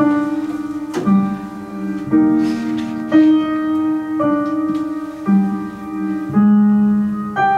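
Slow piano music: held chords, a new chord struck about once a second.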